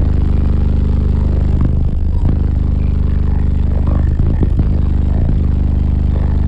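Two Deaf Bonce Apocalypse 12-inch car subwoofers playing a loud, steady, deep bass note at extreme excursion, heard inside the cab. A few short knocks sound over the bass.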